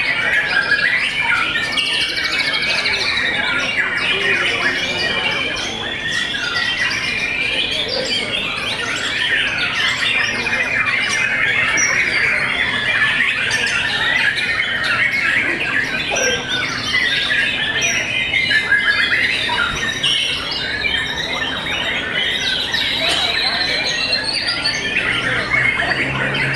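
Caged white-rumped shamas (murai batu) singing at once in a dense, unbroken chorus of overlapping short phrases and glides.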